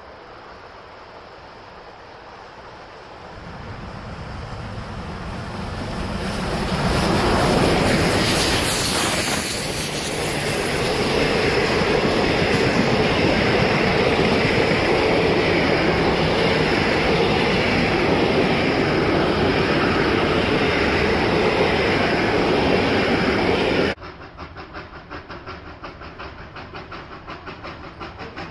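Steam locomotive drawing near and passing at speed, getting louder until it goes by, followed by a long steady run of passenger carriages rolling past with wheels clattering over the rail joints. About four seconds before the end it cuts off sharply to a distant steam locomotive working hard up a steep grade, its exhaust beating in an even, rapid rhythm.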